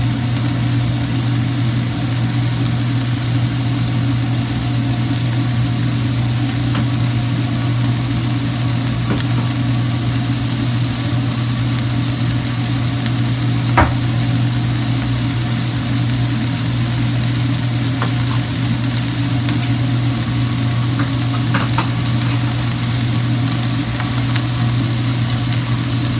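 Beef cubes sizzling in a frying pan over a strong, steady low hum, with a few sharp clicks, the loudest about fourteen seconds in.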